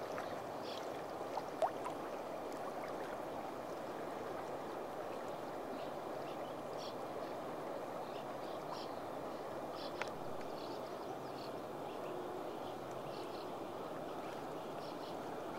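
Steady rush of river current washing around a sea kayak on the water, with a few small knocks about a second and a half in and again about ten seconds in.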